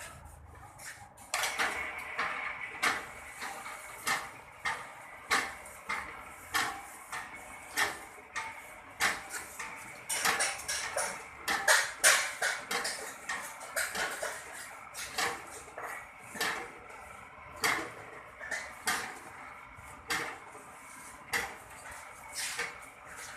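Es puter ice cream machine running with its stirrer: repeated metallic clinks and clatter, about one to two a second, over a faint steady hum.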